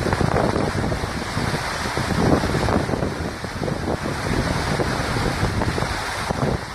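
Waterfall rushing steadily, with wind buffeting the microphone in irregular gusts.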